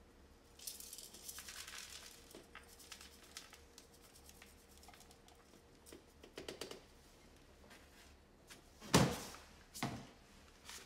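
Rustling and crinkling of hands handling a potted houseplant, then two dull thumps about nine and ten seconds in as the plastic pot is set down on the potting mat.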